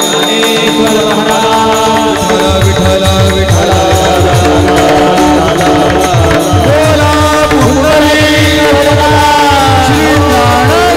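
Warkari kirtan music: voices singing a devotional chal over steady held tones, with small hand cymbals (taal), and drum strokes that come in about two and a half seconds in.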